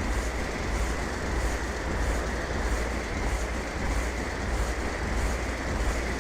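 Steady in-flight noise of a Cessna 172: a low propeller and engine rumble under rushing airflow, swelling in a regular pulse about twice a second.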